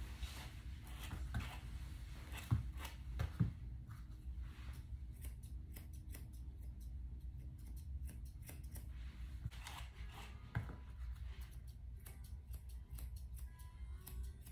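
Grooming shears snipping through a Bedlington Terrier puppy's coat in quick, irregular runs of cuts. A few louder knocks come a couple of seconds in.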